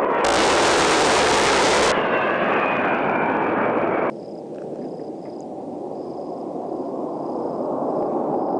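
Jet noise from an A-10's twin turbofan engines: a very loud, harsh rush for about a second and a half near the start, fading away. After a sudden cut, a lower rumble grows slowly louder as the jet approaches.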